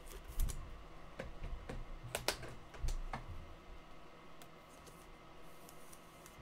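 Scattered light clicks and taps, several in the first three seconds and fainter after that.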